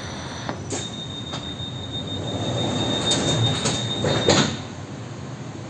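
Ivolga electric train's door-closing sequence heard from inside the carriage: a steady high warning tone sounds for about three and a half seconds, with a few clicks, and ends in a loud thump as the doors shut. The carriage's steady hum continues underneath.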